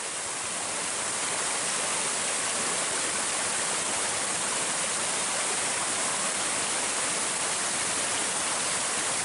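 Steady rush of falling water from the Barcenillas stream, growing a little louder over the first second and then holding even.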